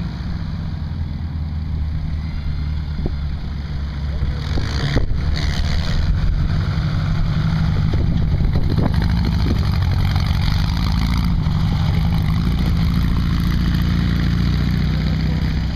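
Baja bug (off-road VW Beetle) engine running and revving as the car drives across a dirt track. It grows louder about four seconds in as the car comes close and stays loud while it pulls away.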